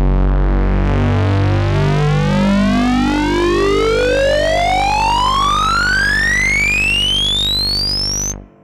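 Synthesizer FX riser: a buzzy tone with many overtones sweeping steadily upward in pitch for about eight seconds, then cutting off abruptly near the end.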